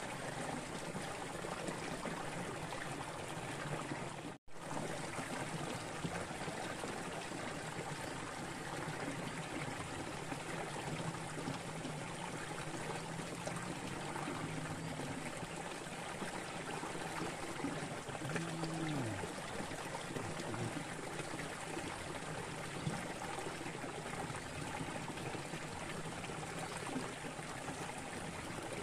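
Water steadily trickling and running in a small muddy ditch. The sound drops out for an instant about four seconds in.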